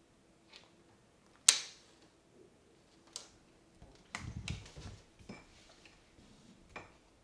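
Scattered sharp clicks and taps of a young argus monitor lizard's claws on a hard tub floor as it shifts while swallowing a hamster, the sharpest click about a second and a half in, with a short stretch of scuffling and soft thuds about four seconds in.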